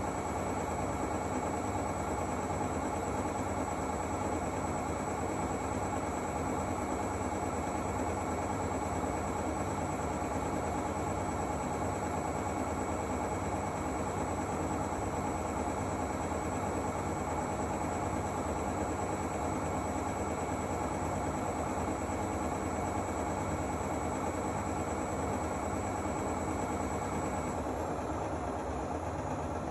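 Zanussi AquaCycle 500 FA 623 washing machine running steadily, its motor giving a constant hum with a thin high whine that stops about two seconds before the end.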